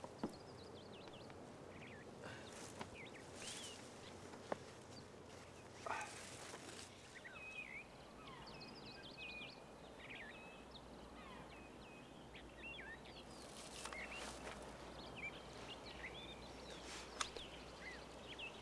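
Woodland ambience: scattered small bird chirps and calls over a faint steady hiss, with a few brief clicks and a short rustle.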